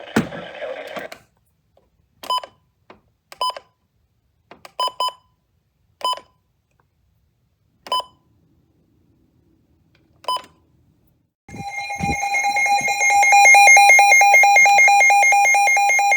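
Weather alert radio: a few short single electronic beeps at uneven intervals, then, about eleven seconds in, the radio's loud alert alarm, a fast pulsing beep, signalling an incoming severe thunderstorm warning.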